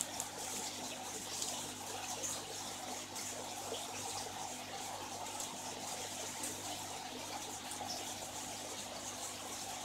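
Steady bubbling and trickling of water from the aeration outlets in a fish tub, over a low steady hum.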